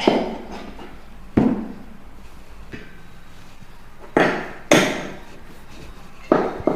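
About six sharp knocks on a chiropractic treatment table during adjustments, irregularly spaced, two of them in quick pairs, each with a brief ringing tail.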